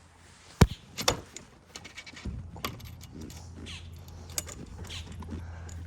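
Sharp metallic clicks and clinks from a stainless bimini-top hinge and quick-release locking pin being fitted and snapped into place. The loudest click comes just over half a second in, then a second one and lighter taps follow.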